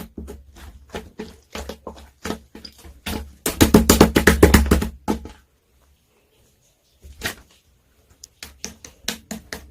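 Clear slime being squeezed and pressed by hand, making sharp clicking pops. A fast, loud run of clicks comes about three and a half seconds in, then a short pause, and the clicks start again near the end.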